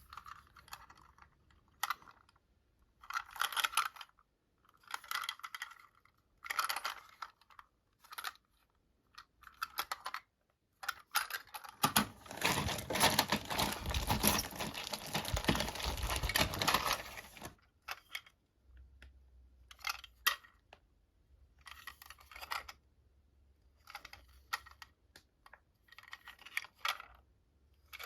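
Hands unpacking a plastic toy train set: intermittent rustling and light clicks of plastic packaging and parts, with about five seconds of louder continuous rustling in the middle.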